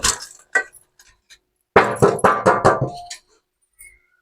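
A run of sharp percussive knocks and clatters: two single knocks at the start, then a quick burst of about six strikes about two seconds in.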